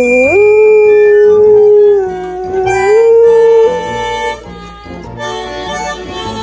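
Boxer dog howling: one long note that rises in pitch about half a second in, wavers, steps up again near three seconds and stops a little before four seconds. Background music with a steady beat plays underneath throughout.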